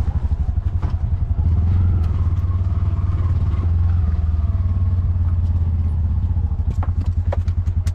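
A tuk-tuk's small engine running at low speed, heard from inside the open cabin as a steady, low, rapidly pulsing chug, with a couple of light knocks near the end.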